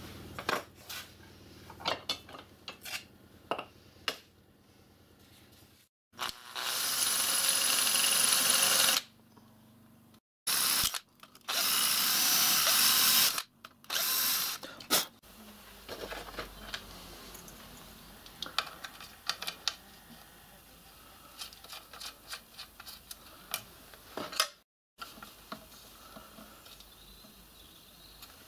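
Electric drill running in three bursts of a few seconds each, drilling holes to mount the lathe's clear plastic pulley guard. Before and after the drilling come light clicks and taps of parts being handled.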